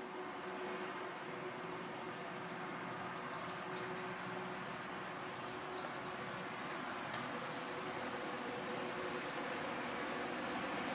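Distant train approaching along the line, a faint steady rumble with a low hum that slowly grows louder. A few short bird chirps over it.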